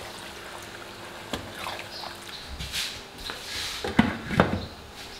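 Wooden spoon stirring chicken and yogurt in a pan, a soft wet sloshing. About four seconds in, a glass lid is set on the pan with two sharp clinks.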